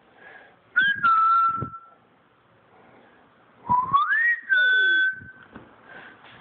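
A person whistling twice to call a dog: a short whistle about a second in, then a longer one that slides up in pitch and holds.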